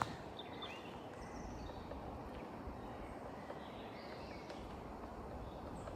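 Quiet woodland ambience: a steady outdoor hiss with a few faint bird chirps, and a single faint knock about halfway through.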